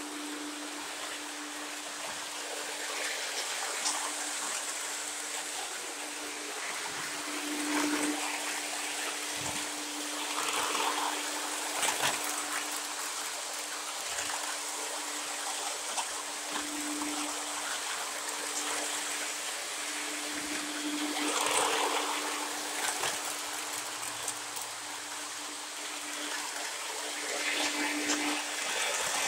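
Lionel O gauge model trains running on metal track: a steady rolling hiss from the wheels and motors, a constant hum that swells and fades as the trains pass, and scattered clicks as the wheels cross rail joints.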